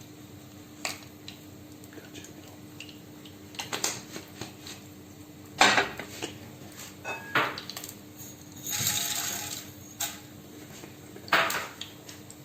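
A metal spoon clinking and knocking against a cooking pot, a few separate sharp clinks with the loudest about halfway through, as salt is spooned onto popcorn kernels in oil. A short hiss comes about three-quarters of the way in, over a faint steady hum.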